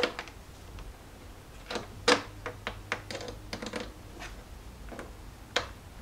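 Irregular clicks and taps as a heavy-gauge battery cable and its ring terminal are handled and routed among the plastic parts of an engine bay. Several come in quick succession around the middle, with a lone tap near the end.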